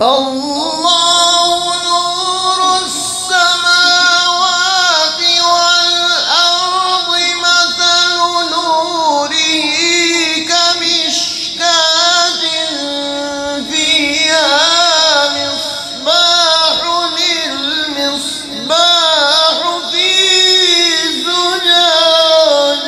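A male qari reciting the Quran in a high, melodic tajweed style. He holds long drawn-out notes with wavering ornamental turns, broken by short breaths.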